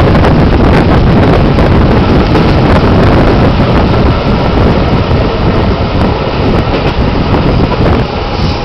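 Metre-gauge Rhaetian Railway train running, heard from an open carriage window: a loud, steady rumble of wheels on the rails with wind buffeting the microphone.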